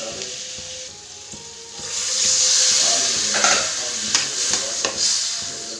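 Bitter gourd, onion and tomato sizzling in hot oil in a metal kadai while a spatula stirs and scrapes the pan. The sizzle grows louder about two seconds in.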